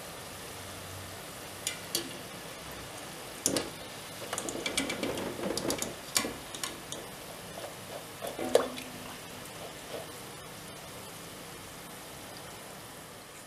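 Dough pieces deep-frying in hot oil with a steady sizzle, while a wire skimmer clinks and scrapes against the pot as the fried pieces are lifted out; the loudest knock comes about eight and a half seconds in.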